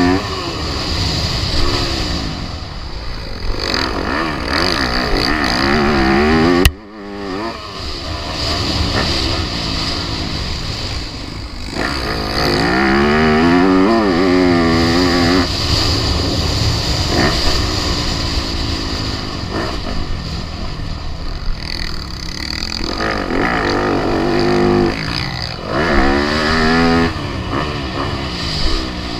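Four-stroke motocross bike engines revving hard, the pitch climbing and dropping again and again as the throttle is worked and gears change. The sound cuts off abruptly about seven seconds in, then the revving resumes.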